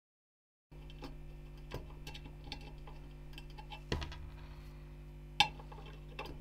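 Scattered light metal clicks and knocks from the CPU cooler's metal mounting brackets being handled and set against the heatsink base, the loudest about five seconds in, over a steady low hum. It starts after a moment of dead silence.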